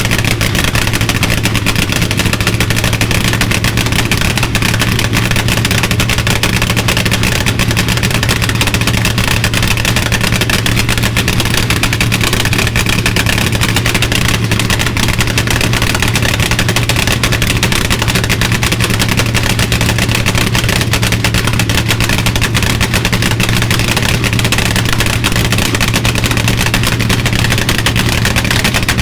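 Hemi V8 of a rear-engine Dodge Dart funny car running loud and rough at a steady idle, with no revving.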